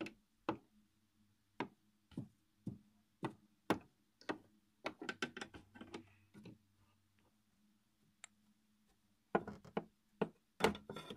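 Plastic toy rider figure tapped on a wooden dollhouse floor as footsteps: a run of light, sharp taps, pausing for about two seconds near the end before a few more. A faint steady low hum sits underneath.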